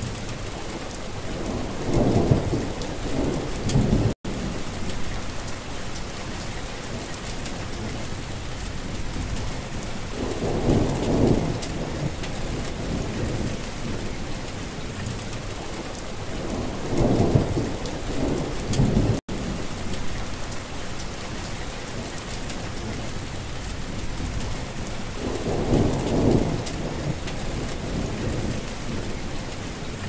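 Steady rain falling, with low rolls of thunder swelling up four times, a few seconds each. The sound drops out for an instant twice.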